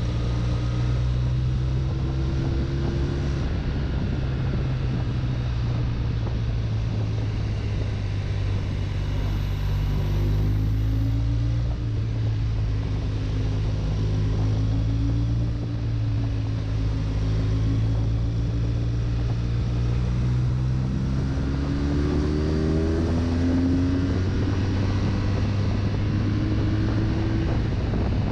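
BMW touring motorcycle engine running under way, its pitch rising and falling with the throttle through the bends and climbing sharply about three quarters of the way through.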